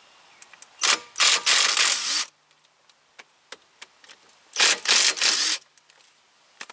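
Cordless impact wrench hammering on a bolt at a front brake caliper, in two bursts: one about a second in, another near five seconds. Each burst opens with a short blip of the trigger, then about a second of rattling impacts.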